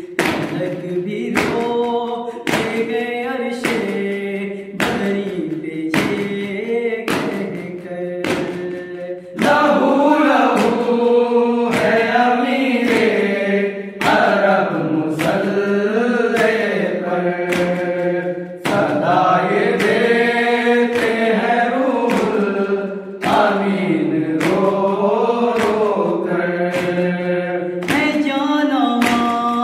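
Male voices chanting a Shia nauha lament together, kept in time by matam: rhythmic hand strikes on the chest, about one a second. The singing grows louder about nine seconds in.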